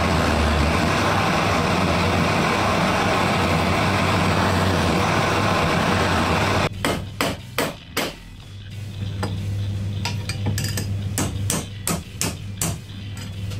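A torch flame hissing steadily while it heats a scrap steel piece; it cuts off about halfway, and a hammer then strikes the hot metal with a quick run of blows, bending it to shape.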